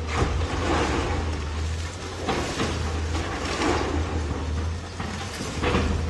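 Diesel engine of a long-reach demolition excavator running steadily, while broken concrete and rubble from the building it is pulling down falls in several crashes, about a second in, midway and near the end.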